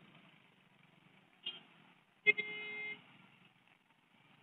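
A vehicle horn gives a short beep about a second and a half in, then one steady honk of under a second a little past two seconds in, over faint low background noise.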